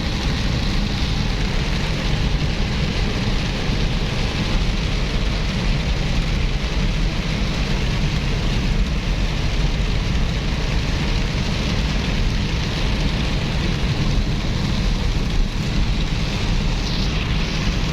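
Steady rain falling, an even hiss with a constant low rumble underneath.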